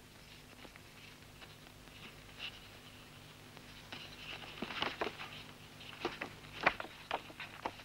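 A sheet of paper being handled on the bed of an etching press, with rustles and light taps. The handling grows busier about halfway through, with the sharpest tap near the end.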